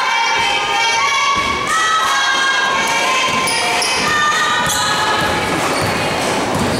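High-pitched cheering and shouting from spectators and players in a gymnasium as a girls' basketball game tips off, strongest in the first few seconds, with a few thuds of a basketball bouncing on the hardwood court.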